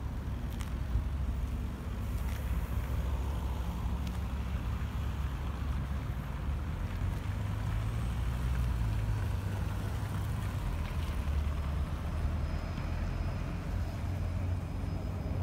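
Wind buffeting the phone's microphone as a steady low rumble, mixed with the hum of road traffic.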